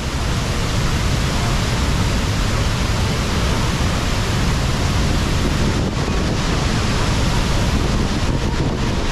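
Tegenungan Waterfall's falling water, a loud, steady rushing noise with no break.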